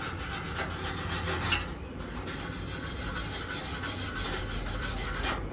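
Wire brush scrubbing the freshly welded steel of a truck tailgate, cleaning the welds: a continuous rapid scraping with a short break about two seconds in.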